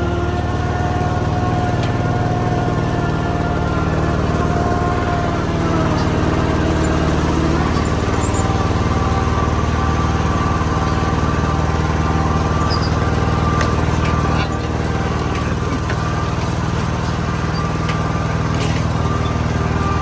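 Ride-on lawn mower engine running steadily as it drives along, with a constant engine note that dips slightly in pitch a few seconds in.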